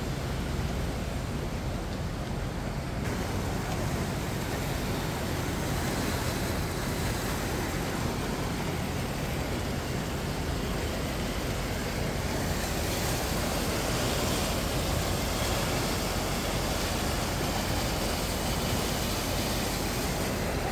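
Steady rushing of a flood-swollen river running fast under a bridge, a continuous wash of water noise that grows a little louder about halfway through.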